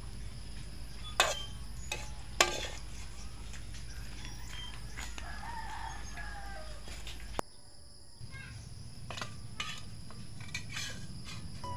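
A metal spatula clanks sharply against a steel wok twice, about a second in and again a second later, with lighter taps later on, as fried dried fish are scooped out. A rooster crows in the background about five seconds in.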